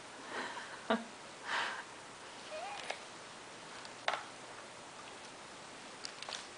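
Soft sniffs, breaths and small mouth clicks from an infant chewing on a toy, with one brief rising coo about two and a half seconds in, over quiet room tone.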